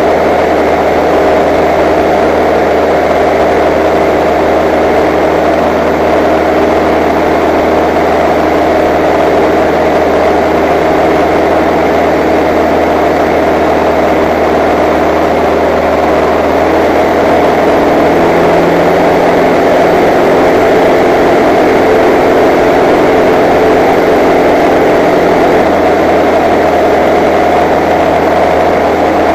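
Engine and propeller of a single-engine light aircraft in flight, heard inside the cockpit as a loud, steady drone that shifts slightly in tone a little past halfway.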